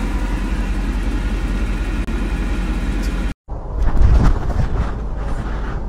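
Steady low hum and noise of a car's interior with the engine running, no voices. A little over three seconds in it cuts off abruptly and gives way to wind on a cat-worn camera's microphone, with rustling and scattered scrapes as the cat climbs a tree.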